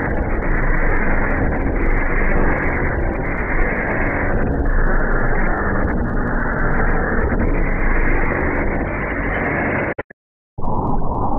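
Loud, heavily distorted, muffled noise from an effects-processed video soundtrack, with nothing heard above the low and middle range. It cuts out abruptly for about half a second near the end and then resumes.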